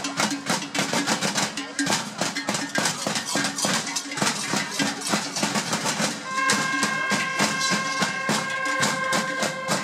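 Many large Perchten cowbells clanging in a fast, uneven rhythm as the fur-costumed Perchten move and dance. From about six seconds in, a steady held note sounds over the clanging.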